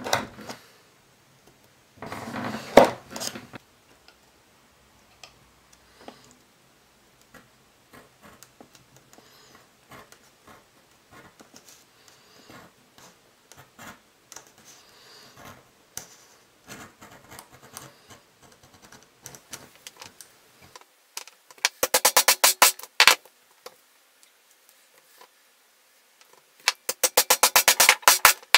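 Leather strap work on a cutting mat: a knife stroke through the leather early on, then light scraping and clicking of a small edge tool. Two runs of rapid, sharp hammer taps on a metal punch driven into the leather, one a little after twenty seconds and one at the end; these are the loudest sounds.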